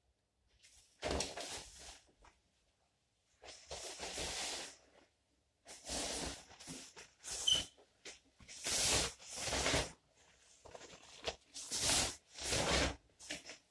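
Rustling of hi-vis cycling jackets' fabric as they are handled and pulled off, in about five bursts of a second or so each.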